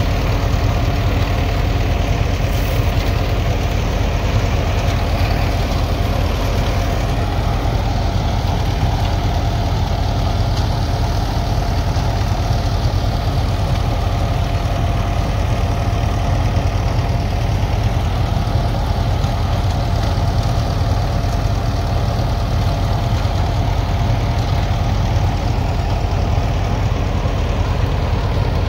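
Engine-driven groundnut threshing machine running steadily: a constant low engine drone with a steady hum over it, unbroken throughout.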